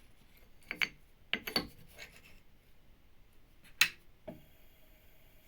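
Handling noises from a metal piece: a few short scrapes and clicks, the sharpest click a little before four seconds in, as the iron meteorite slice is shifted on the grinder's steel table.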